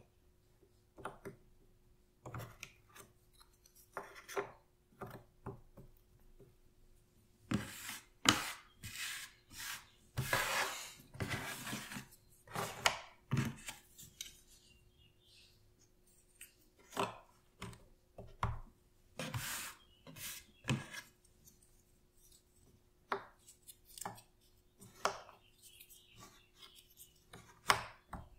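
Cardboard jigsaw puzzle pieces handled on a tabletop: irregular light taps and clicks as pieces are set down and pressed into place. In the middle comes a denser stretch of louder rustling and scraping of pieces.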